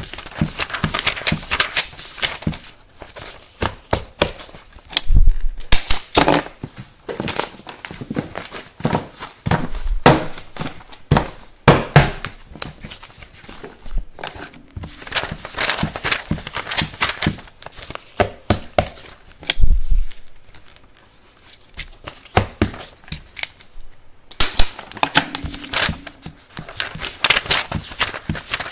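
Sheets of paper being handled and rustled, with the sharp clunk of a stapler driving staples through the paper several times.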